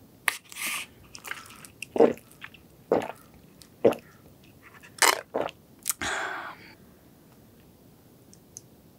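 A straw poked into a small strawberry-milk carton, then sips through the straw and a few separate gulps as the drink is swallowed, about a second apart, ending with a short hiss of breath or slurp.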